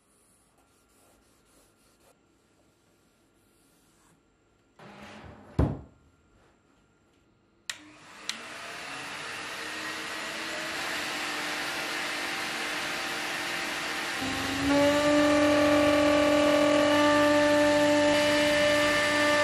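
A single heavy thud about five seconds in, then a click and the CNC router's vacuum-bed pump starting up: a rushing hum that grows steadily as it spins up, turning louder with a steady whine about fourteen seconds in. The vacuum pulls air through the MDF spoilboard to hold the sheet down.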